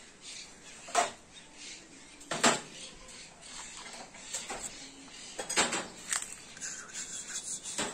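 Scattered metal clanks and knocks, as of tools and metal parts being handled. Sharp strikes come about a second in, about two and a half seconds in (the loudest), and twice around six seconds, with lighter clinks between.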